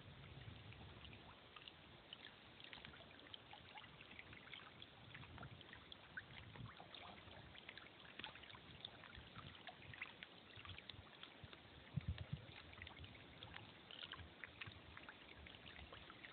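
Near silence: faint lapping and trickling of small lake waves at the rocky water's edge, with a few low bumps about three-quarters of the way through.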